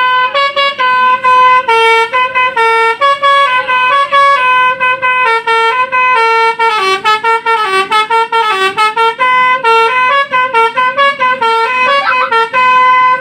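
Indonesian telolet bus horn, a Basuri multi-tone air horn, playing a long preset melody at full volume: a fast run of short, bright notes stepping up and down, with brief breaks between notes.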